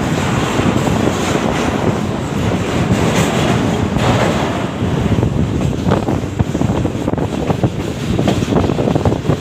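The 33UP Pak Business Express passenger train running along the line: a steady rolling rumble with a rapid, irregular clatter of the wheels over the rail joints.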